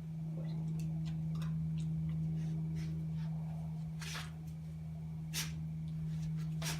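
A steady low hum with a few faint ticks and taps.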